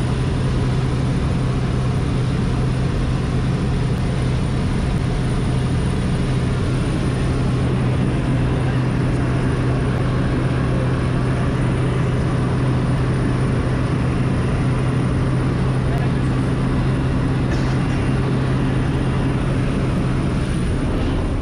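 Small skydiving plane's engine and propeller droning steadily at one low pitch, heard inside the cabin with wind rushing in through the open jump door.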